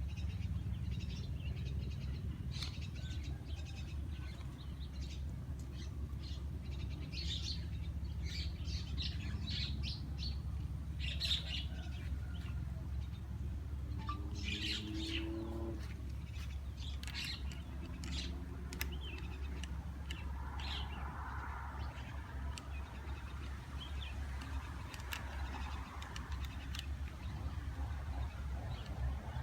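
Small birds chirping again and again over a steady low rumble.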